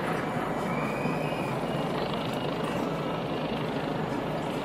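A steady engine drone that holds level without a break.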